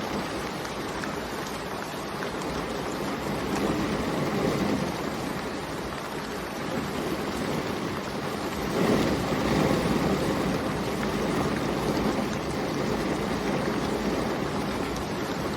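Steady rain falling, an even hiss that swells gently about four seconds in and again about nine seconds in.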